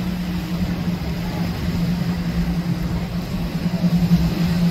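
Engines of a large cabin cruiser running at speed, a steady drone with an uneven low rumble beneath it.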